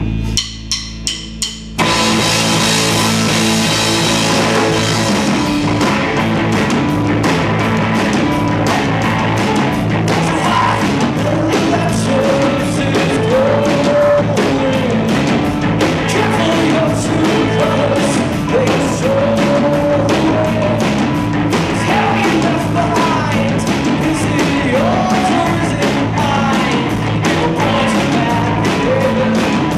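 Live rock band playing loud: four short, sharp hits in the first two seconds, then electric guitars, bass guitar and drum kit come in together. A male lead vocal starts about twelve seconds in.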